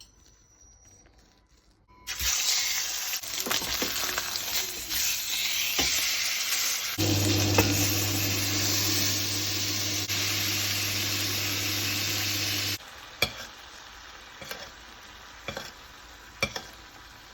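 Ribeye steak searing, a loud steady sizzle that starts suddenly about two seconds in and cuts off sharply about four seconds before the end. A low steady hum joins about halfway through the sizzle, and a few faint knocks follow once it stops.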